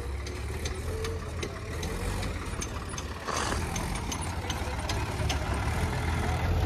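Tractor diesel engine running steadily, with scattered light clicks over the hum and a slight rise in level about three seconds in.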